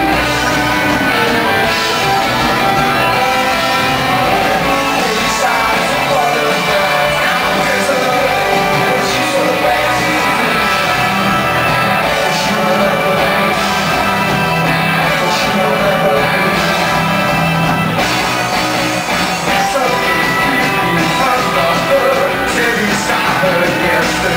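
Rock band playing live on stage, with electric guitar, drums and a singing voice.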